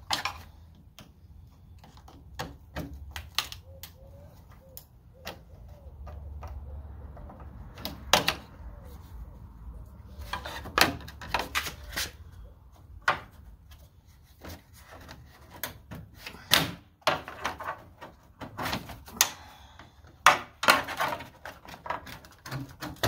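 Old plastic retaining clips on a Ford F150's header panel being snapped and pried out with a small tool: a string of irregular sharp cracks, clicks and plastic knocks.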